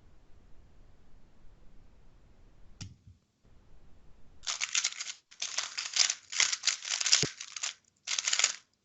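MoYu WeiLong WR M magnetic speedcube being turned very fast in a speedsolve: a dense run of plastic clacking and rattling lasting about four seconds, starting a little past halfway. A single sharp click comes about three seconds in.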